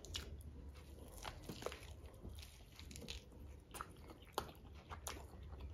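Close-up eating sounds of two people eating KFC-style fried chicken drumsticks: faint, irregular crunches as the crispy breaded skin is bitten, with wet chewing between them.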